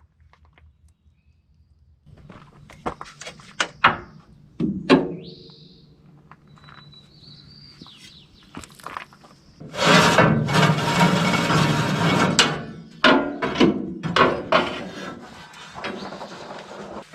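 Knocks, thunks and clatter of hands-on tool work while parts are stripped out of an RV, with a short high squeak about six seconds in. About ten seconds in comes a louder, noisy stretch of a couple of seconds.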